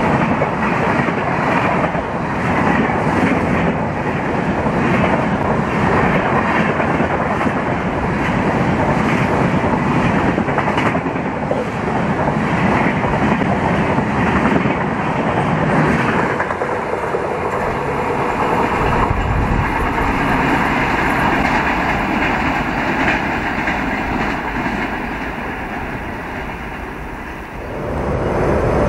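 Passenger express coaches rushing past at speed, with a steady roar of wind and wheels clattering over the rail joints. The sound thins and fades over the last few seconds as the train draws away, and a new loud rumble starts abruptly at the very end.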